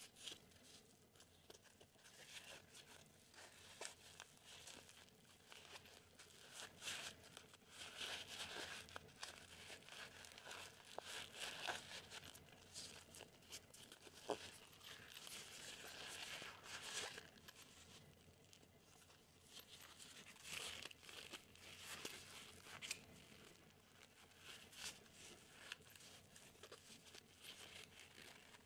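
Faint rustling, scratching and crinkling of a Cordura nylon ID card case being handled, folded open and its pockets worked by hands.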